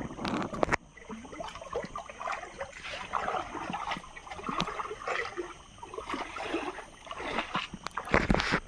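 Water splashing and sloshing in an irregular run as someone wades through a shallow, muddy stream. Near the end come louder thuds of footsteps.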